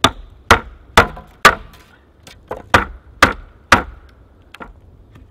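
Wooden baton hammering the spine of a bushcraft knife to drive it crosswise through a log (cross batoning): a run of sharp wooden knocks about two a second, some eight blows with a short pause about two seconds in.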